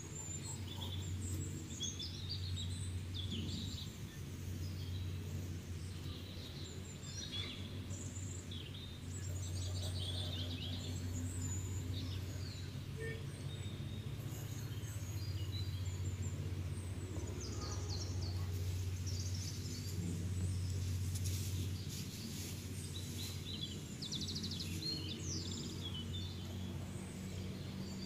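A steady low hum with faint, scattered high chirps over it, like small birds calling in the background.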